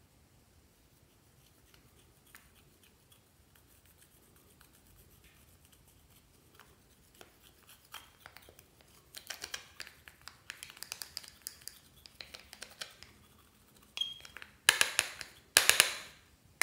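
A small tool scraping and scratching pressed blush powder out of a makeup compact, crumbling it into a glass dish. Faint scattered ticks at first, denser scratching from about nine seconds in, then two short, louder bursts of scraping near the end.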